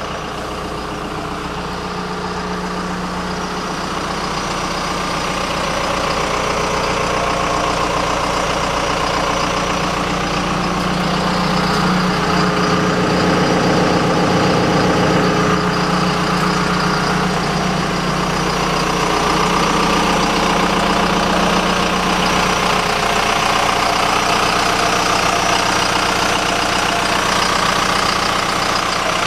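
2007 John Deere 160D LC excavator's diesel engine idling steadily, growing louder over the first several seconds.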